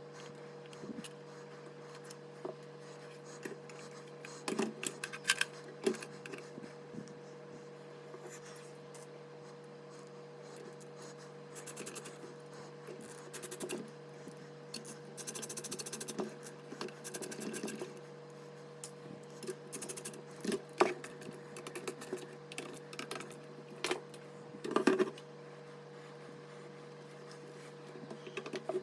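Computer parts and tools being handled: scattered clicks, knocks and scrapes, with a stretch of fast ticking about halfway through, over a steady low hum.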